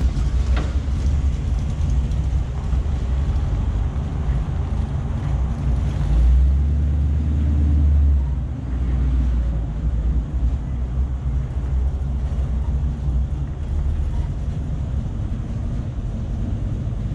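Vehicle engine running with a steady deep rumble, swelling louder for about two seconds near the middle.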